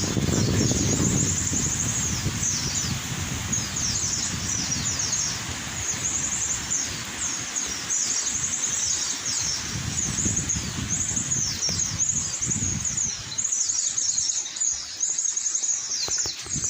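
Small birds calling: a steady string of high, thin, quickly falling notes repeated over and over. Strong wind buffets the microphone as a low rumble, heaviest at the start and again in the middle.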